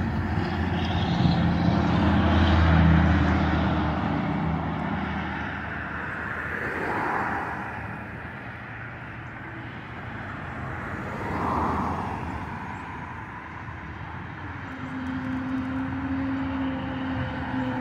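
Airplane passing overhead: its engine hum is loudest about three seconds in, then fades into a steady rush. Two brief swells of noise follow later on.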